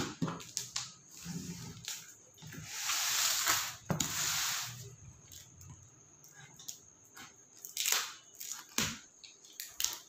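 Scissors cutting through the tape and cardboard of a shipping box, with two longer tearing, scraping stretches about three and four seconds in and scattered clicks and knocks as the flaps are pulled open.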